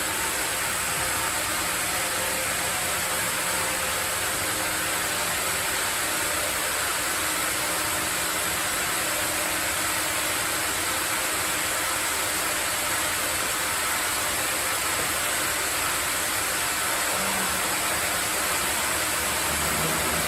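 Sawmill machinery running steadily: an even, hiss-like noise with a faint low hum underneath.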